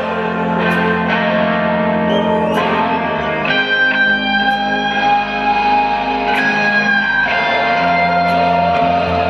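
Live rock band playing loud, with electric guitars holding long sustained chords that change every second or two.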